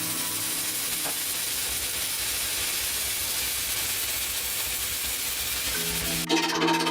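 Steady hiss and crackle of welding, sealing the last leaking holes in a quench tank's welded seams; music cuts in near the end.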